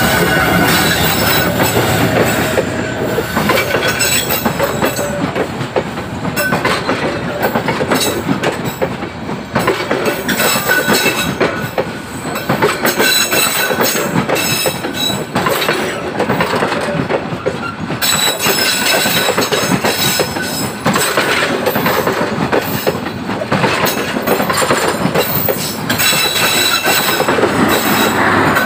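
Passenger coaches of a Bangladesh Railway intercity train rolling past close by. The wheels clack over the rail joints and squeal against the rails, over a steady rolling rumble. The diesel locomotive's deeper engine rumble fades within the first couple of seconds.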